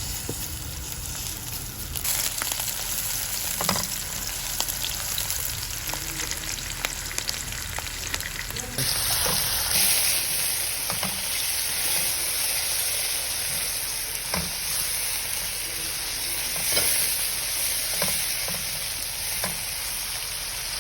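Chicken frying in hot oil in a pan, a steady sizzle that turns much louder about nine seconds in, with a spatula knocking against the pan every second or two as it is stirred.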